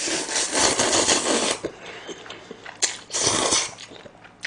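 A person slurping spicy stir-fried instant noodles close to the microphone: one long slurp lasting about a second and a half, then a shorter slurp about three seconds in.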